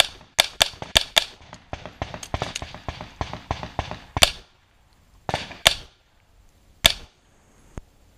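Semi-automatic pistol firing a timed stage: a rapid run of shots through the first four seconds, then single and paired shots spaced about a second apart.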